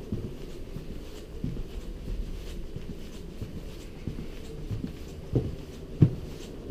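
Footsteps on a wooden deck: dull low thuds roughly every half second to a second, the last two the loudest, over a steady low rumble.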